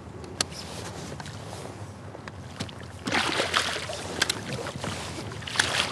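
Water splashing and sloshing beside a kayak from about three seconds in, as a hooked muskie is scooped into the landing net. A single sharp knock about half a second in.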